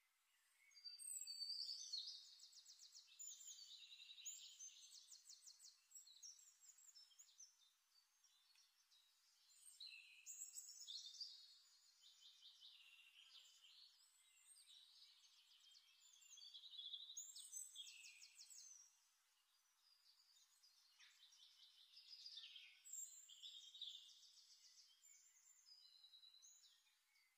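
Faint birdsong: phrases of rapid high trills and chirps that come and go every few seconds.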